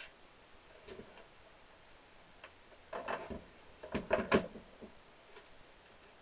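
Small parts and hand tools clicking and clattering as an RC nitro truck is taken apart: a few separate clicks, then two short runs of clatter about three and four seconds in, the second the loudest.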